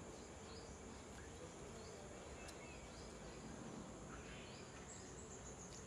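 Faint background ambience: a steady low hiss with a few faint, short high chirps scattered through it.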